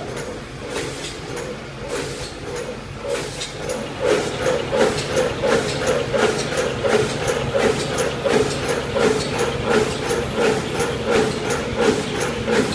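Paper lunch container molding machine running, its forming mechanism clacking in an even rhythm of two to three strokes a second. It gets louder about four seconds in.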